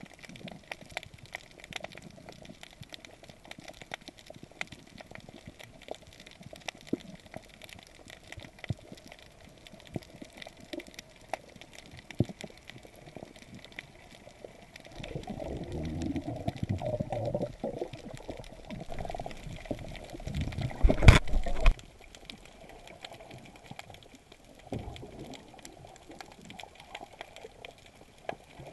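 Water heard through an underwater camera while snorkelling: a constant faint crackle of small clicks, with two passages of churning bubbles and water rush past the microphone about halfway and three-quarters through, the second with a sharp knock.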